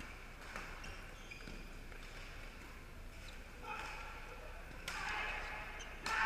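Badminton racquets hitting a shuttlecock in a doubles rally: sharp strikes every second or so, the two near the end the loudest. Voices murmur throughout in a large echoing hall.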